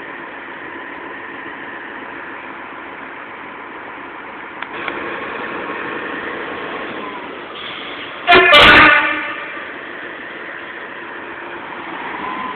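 Railway track tamping machine's engine running steadily, with one short, loud blast of its horn about eight seconds in.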